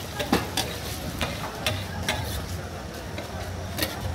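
Metal spatula scraping and clinking against a large flat tawa griddle as pieces of liver are stirred and turned while frying, with a sizzle of frying underneath. The clinks come irregularly, every half second or so.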